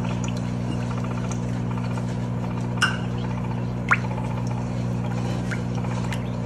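Silicone spatula stirring thick coconut cream with tapioca starch in a metal saucepan, with soft liquid sloshing and two light clicks against the pan about three and four seconds in, over a steady low electrical hum.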